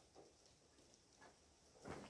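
Near silence, with a few faint soft ticks and a slightly louder brief sound near the end.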